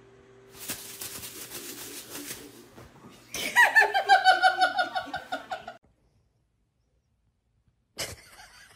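A person laughing in quick, high-pitched bursts for about two and a half seconds, starting about three seconds in, after faint crackling noise.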